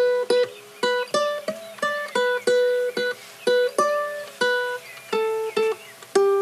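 Background music: a melody of plucked-string notes, about two notes a second, each struck sharply and fading away.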